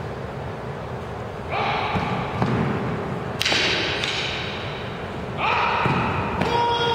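Paired iaido kata with wooden practice swords: thumps and sharp knocks of feet and swords on a wooden sports-hall floor, in loud bursts about two seconds apart, mixed with short shouted cries and ringing in the hall.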